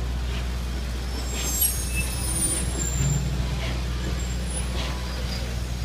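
Steel passenger coaches of a train rolling slowly by on a curve: a steady low rumble with occasional clicks of wheels over rail joints. There is a brief thin high squeal about a second and a half in.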